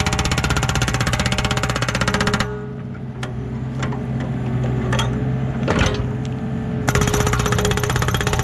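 Hydraulic breaker hammer on a Yanmar B37 mini excavator pounding hard rock in a rapid, steady stream of blows. It stops about two and a half seconds in, leaving the excavator's diesel engine running with a few separate knocks and clanks. The rapid hammering starts again near the end.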